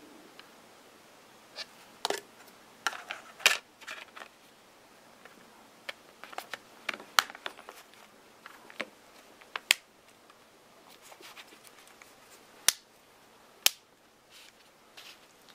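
Hard plastic clicks, taps and light scrapes from handling a smartphone's plastic back cover and parts on a table: a dozen or so sharp clicks spread irregularly, the sharpest a few seconds apart, with rustling in between.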